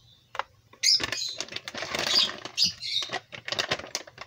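Plastic food pouch crinkling and rustling as a hand rummages inside it, a dense run of crackles starting about a second in.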